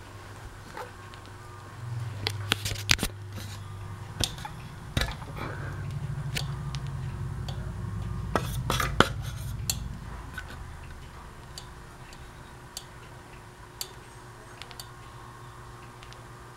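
Kenmore Victorian-copy ceiling fan motor humming steadily while the fan barely turns. Between about two and ten seconds in come a run of sharp clicks and clatters and a deeper hum that swells and then fades.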